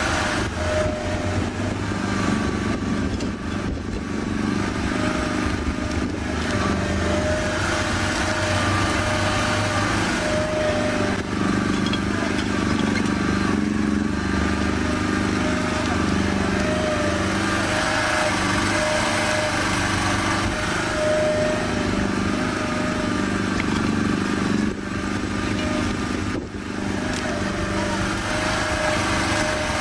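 A yellow micro excavator's small engine running steadily while it digs soil, with a tone that comes and goes in short spells over the engine hum as the boom and bucket are worked.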